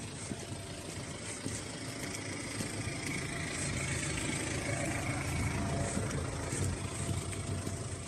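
A car engine running close by, growing louder through the middle and easing near the end.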